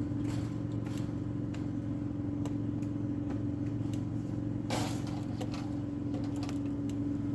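Steady engine hum with a constant pitch, with scattered light clicks and a brief rustle a little over halfway through.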